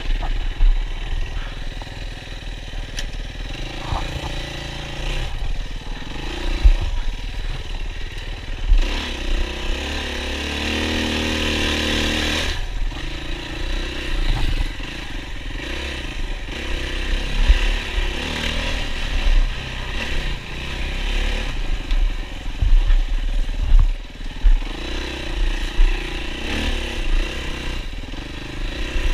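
Yamaha WR450F single-cylinder four-stroke dirt bike engine revving and easing off over and over as it is ridden over rough ground, with scattered knocks and clatter from the bike. About a third of the way in the engine pulls up in pitch for a few seconds, then cuts off suddenly.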